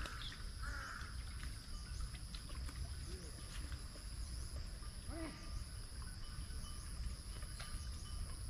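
Steady high-pitched insect drone, with an animal giving short arched calls about three and five seconds in.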